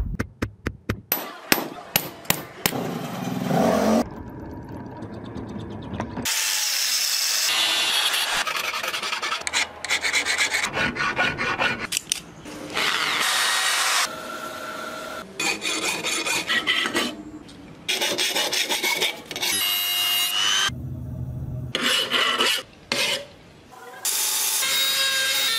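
About eight hammer blows on hot steel over an anvil in the first few seconds. Then a series of short, abruptly cut passages of filing, grinding and sawing on steel as the small axe head is shaped.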